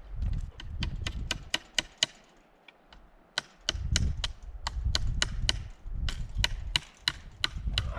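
Hammer striking metal fence staples into a wooden post, in three quick runs of sharp, ringing blows at about four a second with short pauses between.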